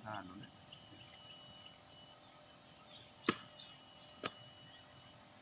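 A steady, high-pitched chorus of insects, with two sharp clicks about three and four seconds in.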